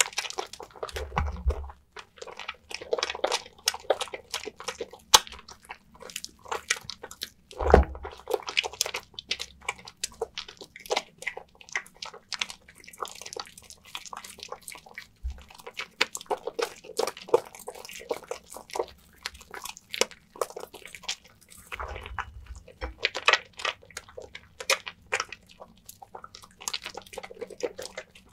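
A wet bar of lavender soap being lathered, making a continuous squishy, crackling foam sound full of small clicks. A few heavier squelching thumps come about a second in, near the middle and again later.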